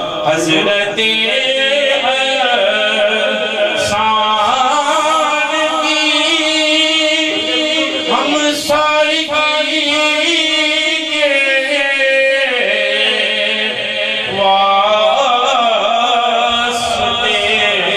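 A man singing an Urdu devotional kalam (naat) into a microphone, in long held notes with wavering ornaments.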